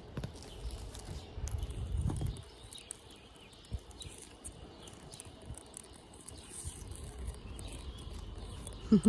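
Outdoor garden ambience: faint birds chirping now and then, with low rumbles on the microphone.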